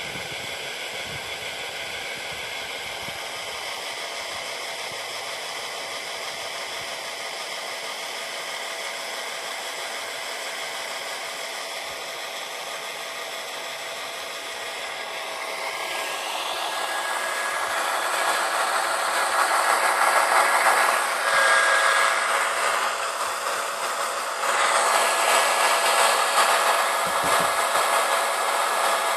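A 7.2-volt cordless drill's electric motor whines steadily as it turns a plastic trolling-motor propeller on a threaded rod, driving the boat. Past the halfway point it grows louder and noisier, with a brief dip a little later.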